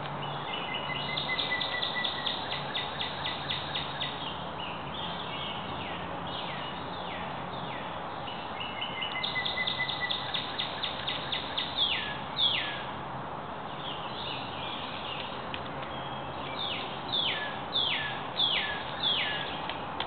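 Woodland birds singing: two runs of quick repeated notes and several falling slurred whistles, four of them in quick succession near the end, over a steady background hiss.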